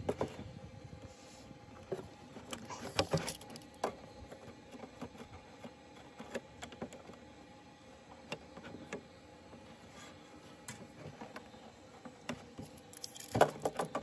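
Handling noises from a thin plastic 6-litre bottle on a wooden table as it is turned, marked with a pen and measured with a tape measure: scattered clicks and crinkles, with two louder flurries about three seconds in and near the end. A faint steady hum lies underneath.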